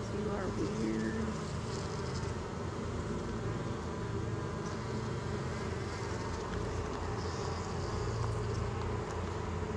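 Many honeybees from an opened hive buzzing in a steady, dense hum.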